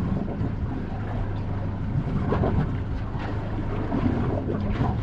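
Wind buffeting the microphone and water around a small boat at sea, with a steady low hum underneath.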